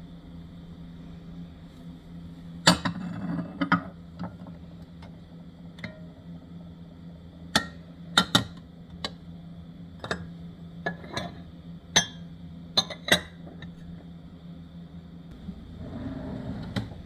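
Household items being handled: a short clatter, then a run of single knocks and clinks, and a scraping rustle near the end, over a steady hum.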